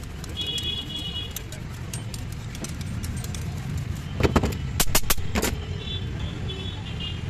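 Hand grater scraping a chocolate block in quick light strokes, then a cluster of loud sharp knocks about four to five and a half seconds in. Steady street-traffic rumble underneath.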